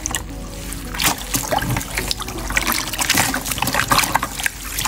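Soapy water sloshing, squelching and trickling in a bowl as hands knead and squeeze a soaked curly wig. Irregular wet splashes and drips run throughout.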